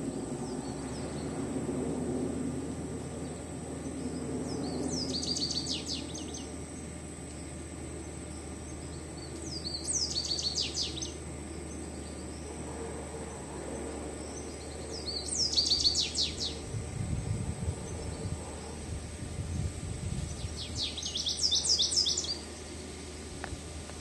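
Male American goldfinch calling from a perch: four short bursts of quick, high twittering notes, one every five seconds or so.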